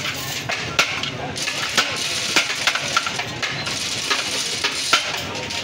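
Irregular sharp clinks and knocks of serving biryani: a plate scooping and scraping rice out of a large metal cooking pot, over a steady background hubbub.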